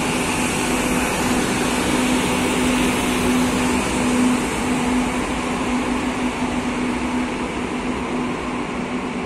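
Madrid Metro series 2000A electric train pulling out and running past, a steady low hum over wheel-and-rail noise that slowly fades as it draws away.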